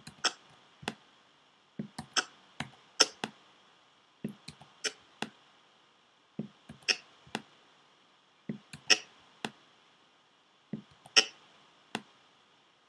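Key presses and clicks on a MacBook Pro's keyboard and trackpad: irregular sharp clicks, often in close pairs, somewhat under two a second.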